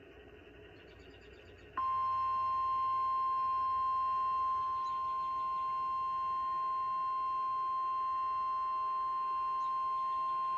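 NOAA Weather Radio's 1050 Hz warning alarm tone, heard through a weather radio receiver: after about two seconds of faint radio hiss it comes on and holds one steady pitch for about nine seconds. It is the Emergency Alert System attention signal that follows the SAME header bursts and announces a warning message.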